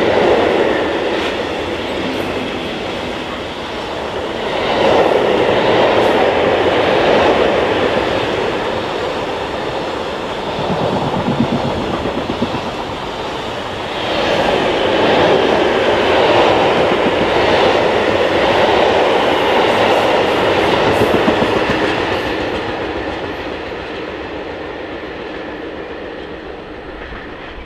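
Container freight train passing at speed: a loud, steady rush and rumble of wagons with wheels clattering over the rails, swelling twice as wagons go by. It fades away over the last few seconds as the tail of the train moves off, then cuts off abruptly.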